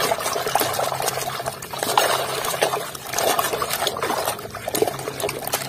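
A hand sloshing and scrubbing a plastic mask in a bucket of muddy water: continuous splashing and swishing, with many small splatters.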